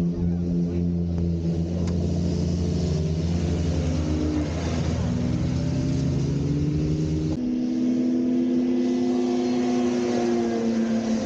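Snowmobile engines running and revving, with a low steady engine note at first and one note rising slowly in pitch midway. About seven seconds in the sound switches abruptly to a different, higher engine note.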